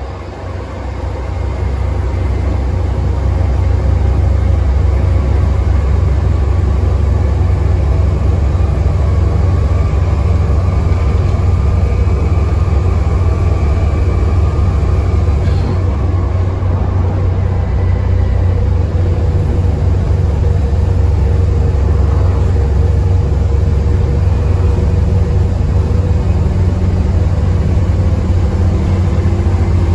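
Volvo B7TL bus's six-cylinder diesel engine working hard under load, heard from inside the moving bus with a heavy low rumble. It builds over the first couple of seconds, then holds steady.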